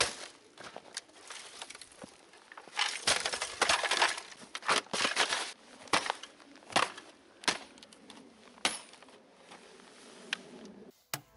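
Repeated sharp blows of a hatchet striking something on the ground. A dense run of blows comes about three to five and a half seconds in, then single blows roughly a second apart.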